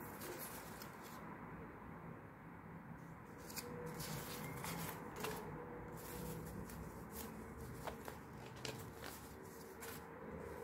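Paper banknotes handled and leafed through by hand: repeated crisp rustles and crackles of the notes as they are flipped, slid and laid on a table.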